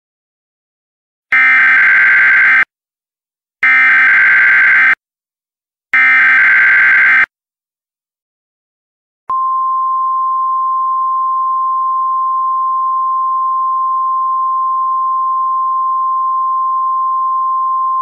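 Emergency Alert System SAME header: three identical bursts of digital data screech, each a little over a second long, carrying a severe thunderstorm warning. About two seconds after the third burst, the steady EAS attention tone begins.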